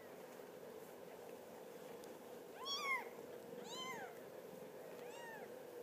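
A 16-day-old kitten mewing while being handled: two high calls in the middle, each rising then falling in pitch, and a fainter one near the end.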